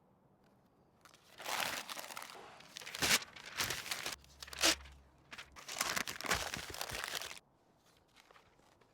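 Irregular rustling and crinkling noise in bursts for about six seconds, with a couple of sharper clicks in the middle.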